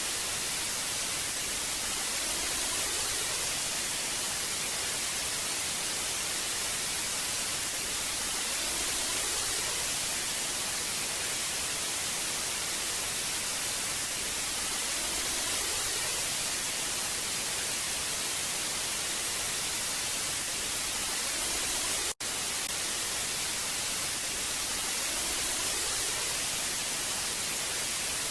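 Old analogue TV static: a steady hiss, brightest in the high end, swelling faintly every few seconds. It breaks off for an instant about 22 seconds in.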